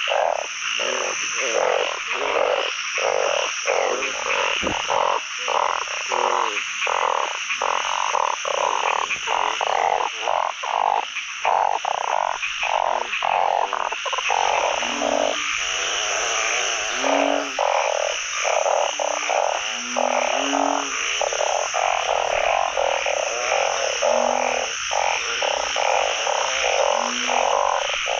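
A dense chorus of many frogs calling at once, with oung (Asian narrow-mouthed frogs) packing the pond in full breeding-season calling. From about halfway through, a few short, deeper notes stand out every second or two beneath the chorus.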